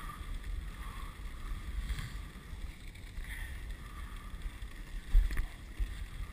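Dog sled moving over snow: a steady rush of the runners with low wind buffeting on the microphone, and a sharp knock about five seconds in.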